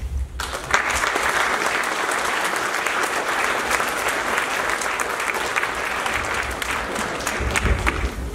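A large audience applauding, starting suddenly about half a second in and holding steady.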